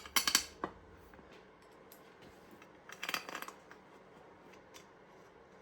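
Light metallic clicks and clinks of hand tools and engine parts being handled, in two brief clusters: one right at the start and another about three seconds in.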